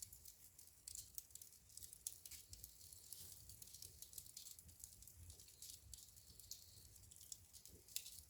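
Wood fire in a fireplace crackling: a faint, continuous run of small sharp pops and snaps, with a louder snap near the end.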